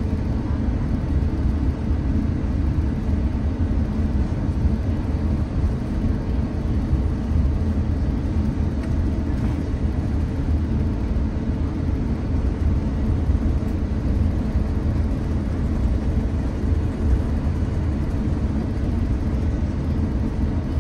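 Steady low rumble heard inside the cabin of an Airbus A350-900 while it taxis, from its Rolls-Royce Trent XWB engines at taxi power, with faint steady tones over the rumble.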